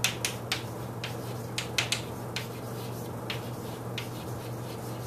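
Chalk tapping and scraping on a blackboard as a word is written: about ten sharp, irregular clicks, most of them in the first two seconds, over a steady low hum.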